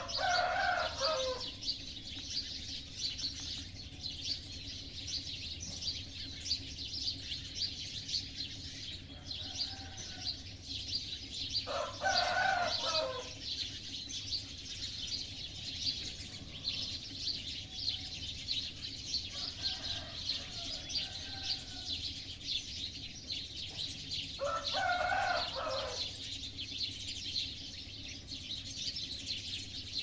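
A dense chorus of small birds chirping throughout, with a rooster crowing three times about twelve seconds apart: at the start, about twelve seconds in and about twenty-five seconds in. Fainter crows from other roosters come in between.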